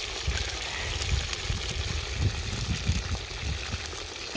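French fries deep-frying in hot oil in a kazan: a steady sizzle with fine crackling, over an uneven low rumble.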